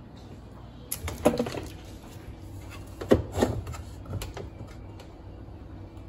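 Plastic lid, panel and dispenser parts of a top-load washing machine being handled, giving several light knocks and clicks over a low background.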